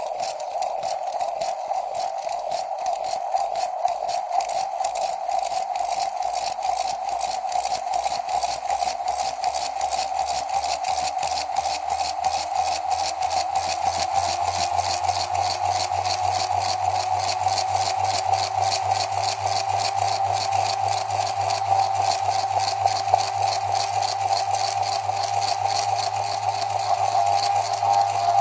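Gyrotwister wrist gyroscope trainer spinning under wrist motion: the rotor whirs with a fast, even rattle, its pitch slowly rising as it gathers speed.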